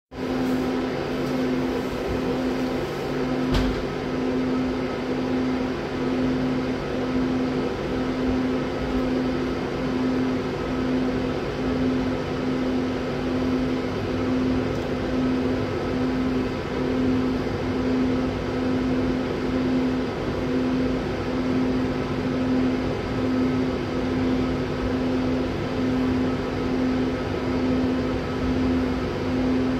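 Steady running hum inside a moving Express Intercity Premium electric train (ED250 Pendolino), with a low tone that swells and fades evenly about once a second over a rumble. A single knock comes about three and a half seconds in.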